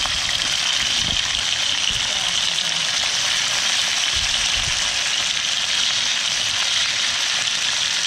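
King George whiting fillets and capsicum strips frying skin-side down in hot olive oil in a pan: a steady sizzle.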